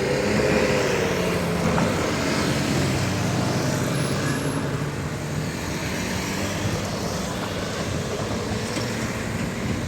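Vehicles passing over a railway level crossing: engines humming over a steady wash of traffic noise.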